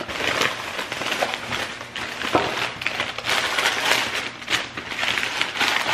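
White wrapping paper crinkling and rustling in the hands as an object is unwrapped, an irregular crackle that goes on throughout.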